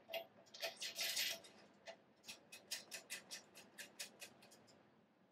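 Faint, sharp clicks from turning the ADJ knob on an ultrasonic interferometer's front panel: a few irregular clicks in the first second or so, then a quick, even run of clicks for about two seconds.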